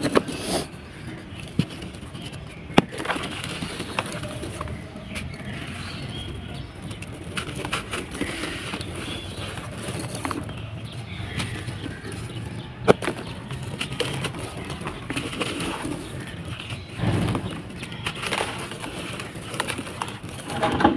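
Dry sand-cement balls being crushed and crumbled by hand in a tub: continuous gritty crunching and crackling, broken by a few sharp snaps and a heavier crunch.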